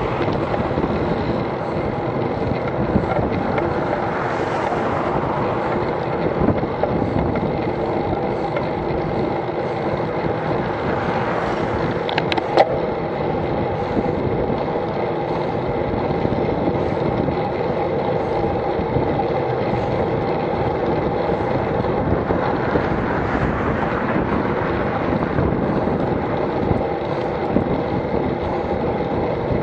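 Steady wind rushing over the microphone with road and tyre noise as the bicycle rides along the road, and a car passing close by near the start. A brief, sharp ring stands out about twelve seconds in.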